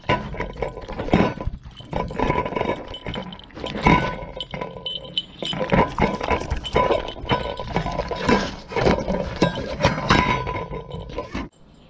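A poodle eating from a plate right against the microphone: fast, irregular chewing and lapping with sharp clinks of the plate and its muzzle and fur knocking and rubbing on the camera. The noise stops suddenly near the end.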